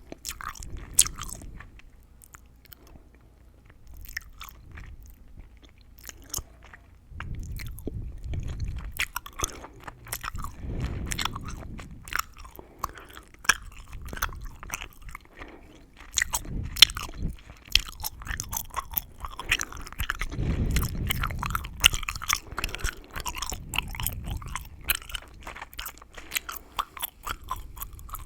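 Close-miked gum chewing: a steady run of wet, tingly crackles and sharp clicks from the mouth, thinning to a lull about two to four seconds in before picking up again.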